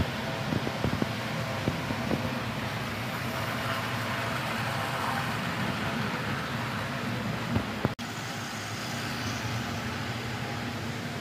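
HO scale model diesel locomotive running on the layout track: a steady motor hum, with a few sharp wheel clicks in the first couple of seconds and a sudden brief break about eight seconds in.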